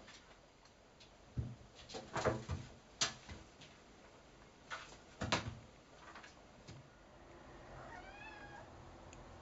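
A cat playing in an empty bathtub: a series of sharp knocks and thumps as it pounces on and bats a washcloth against the tub, loudest in the first half. About eight seconds in, the cat gives one short meow that rises and falls.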